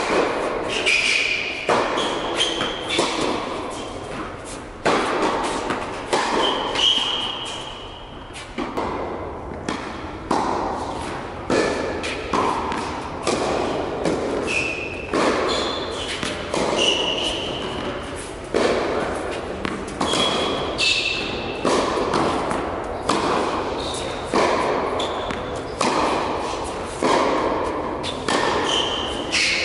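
Tennis balls struck by rackets and bouncing on an indoor hard court: sharp pops about every second or two that echo in the large hall, with short high squeaks of shoes on the court surface between strokes.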